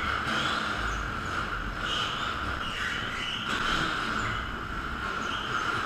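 Bumper cars running in an indoor arena: a steady high whine from the cars' electric motors over a continuous rumbling noise.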